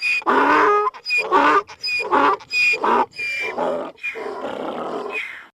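Donkey braying: a fast run of hee-haws, each thin high squeal followed by a harsher, lower honk, stopping just before the end.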